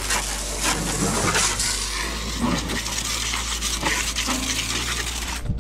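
Pistol-grip garden hose nozzle spraying water onto a car's wheel and tyre, a steady hiss of spray that cuts off abruptly near the end.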